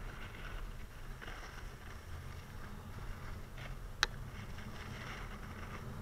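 Snowboard sliding on packed snow: a hissing scrape that swells and fades as the board turns, over a low wind rumble on the camera microphone. A single sharp click comes about four seconds in.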